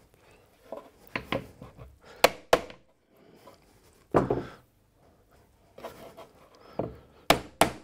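Wooden box-jointed pieces tapped with a mallet to seat the joints fully: about six sharp wooden knocks spread irregularly, the strongest about four seconds in, with faint rubbing of wood being handled between them.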